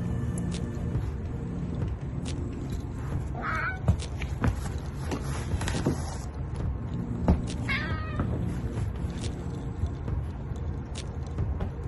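Domestic cat meowing twice, short calls about four seconds apart, with a few sharp taps on the wooden floor between them.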